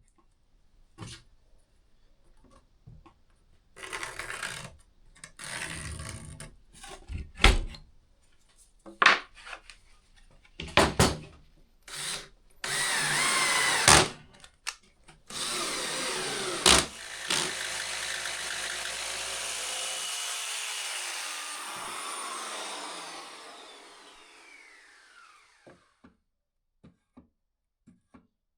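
Scattered knocks and short scrapes of wood being handled, then an electric power tool runs steadily for several seconds and winds down with a falling whine until it stops.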